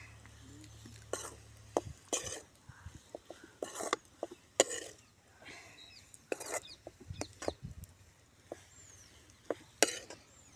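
Metal spoon stirring and scraping against a metal kadai of frying meat, a series of short scrapes and sharp clicks at irregular intervals.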